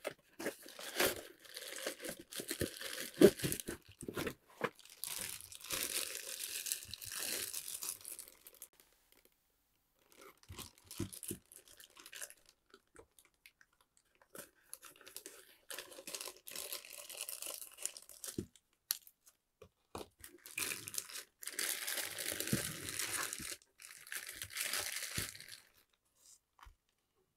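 Unpacking a figure: cardboard box and inner card tray sliding and scraping, then thin clear plastic bags crinkling and rustling as the parts are pulled out of them. The sound comes in several bursts a few seconds long with short pauses between them, and a sharp click about three seconds in.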